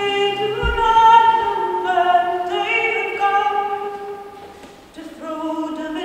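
Unaccompanied voices singing a traditional song in long held notes that step from pitch to pitch. The singing breaks off briefly near the end and then starts again, and a short low thump comes early on.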